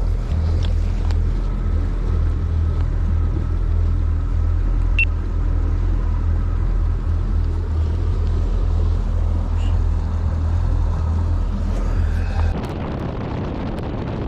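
Boat motor running under way with a steady low rumble. Near the end the rumble drops away, leaving wind noise on the microphone.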